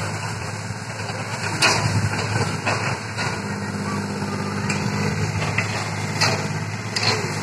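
Diesel engine of an UltraTrex amphibious excavator running steadily while it dredges rubbish from a lake, with a few sharp knocks scattered through.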